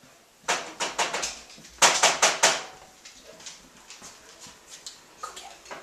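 Dogs' claws clicking and scrabbling on a hardwood floor during play, in two quick flurries about half a second and two seconds in, the second the louder, followed by a few faint scattered ticks.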